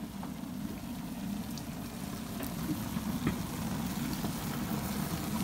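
Tomato sauce being poured into a Dutch oven of cooking vegetables, over a steady low rumble, with a few faint clicks.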